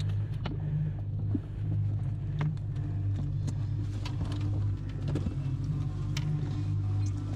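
An engine running at a steady speed, with scattered light clicks and knocks over it.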